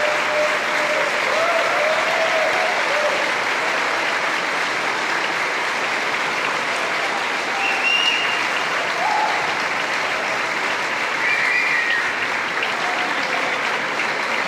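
Concert-hall audience applauding steadily at the end of a performance, with a few shouts and short whistles over the clapping.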